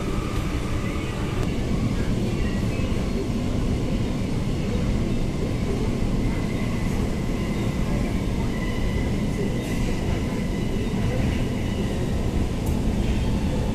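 Kolkata Metro train running at speed, heard from inside the car: a steady low rumble of wheels on the rails with a faint high steady tone above it. There are a couple of faint clicks near the end.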